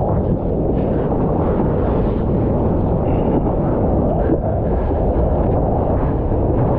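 Wind and rushing water buffeting a surfer's waterproof action camera as it rides along a wave face: a loud, steady, deep rush.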